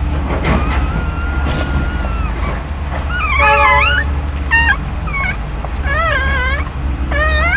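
High-pitched wavering cries of a newborn litter: one long drawn-out call in the first seconds, then a run of short rising-and-falling calls, over a steady low hum.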